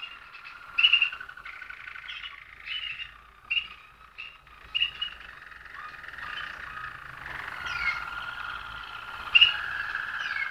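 Malinois (Waterslager) song canaries singing in their cages: a continuous song of low rolling trills, with short higher notes breaking in about once a second.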